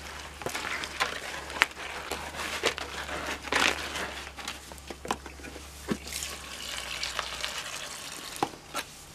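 Concrete mix being worked by hand in a plastic tub while a garden hose runs water into it: irregular scrapes and clicks over a steady wash of noise.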